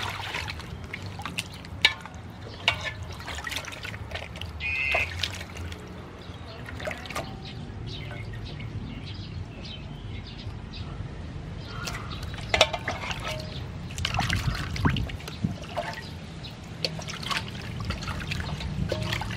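Water splashing and trickling in a metal basin as raw pork ribs are rubbed and rinsed by hand, with irregular small splashes as the meat is moved and lifted.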